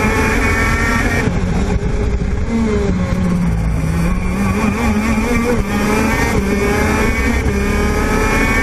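TM 125cc two-stroke kart engine at high revs that drop sharply about a second in as the driver lifts off and brakes for a corner, then climb steadily again under full throttle out of the turn.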